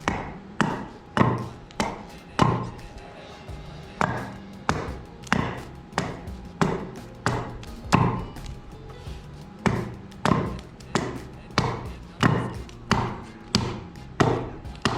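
Hatchet chopping a hackberry leg blank, a steady rhythm of blows about one and a half a second as the green wood is hewn to an angle.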